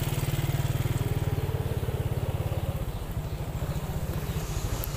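Motorcycle engine running at low speed with a steady, low pulsing beat that eases off a little about three seconds in.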